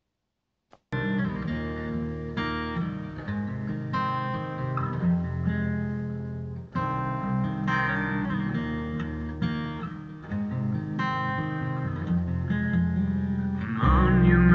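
Guitar playing chords, plucked and strummed, starting about a second in after silence and growing louder near the end.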